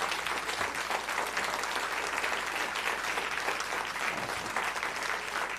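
A church congregation applauding: many people clapping steadily together.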